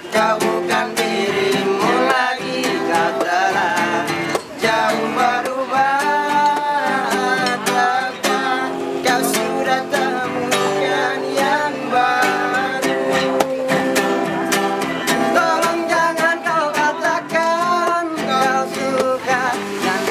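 A group of four male voices singing together in harmony, accompanied by a strummed acoustic guitar.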